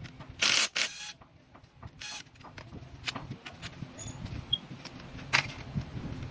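Mechanical clatter and scraping: a few short, noisy bursts in the first two seconds, then scattered clicks, with a sharper click about five seconds in.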